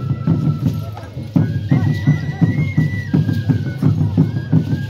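Traditional Andean festival music: drums beating a steady rhythm, about three strokes a second, under a high melody of held notes.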